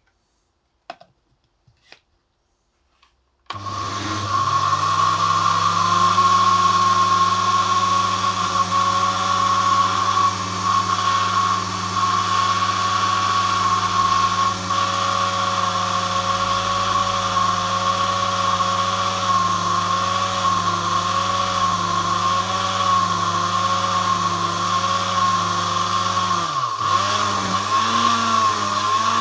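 Countertop blender motor blending bolete mushrooms and water into a spore slurry, with a steady high whine. It starts about three and a half seconds in, after a few light clicks. Near the end its pitch dips briefly and comes back unsteadily.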